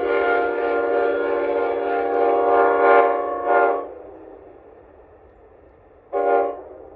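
Locomotive air horn sounding a steady multi-note chord, the sort of horn playing heard in a hornshow. It sounds one long blast with a couple of swells, ends with a short toot about three and a half seconds in, and gives one more short blast near the end.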